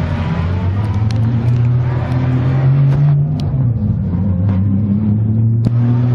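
BMW M3 engine running close by with a low, steady note that rises briefly about three seconds in, with a few sharp clicks over it.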